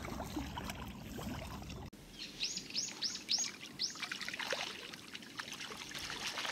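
Light splashing and trickling of water at the pond's edge, with a bird calling about two and a half seconds in: five quick chirps, each falling in pitch.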